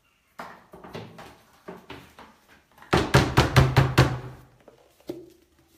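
Knocks and clatter from handling painting gear: a foam paint roller and its frame against a plastic paint tray. About three seconds in comes a loud run of quick rattling clicks lasting over a second, followed by a single knock.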